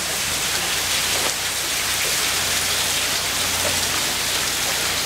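Water pouring and splashing steadily from the chain of pots of a bullock-driven Persian wheel as it lifts water from a well, much of it spilling back down the shaft.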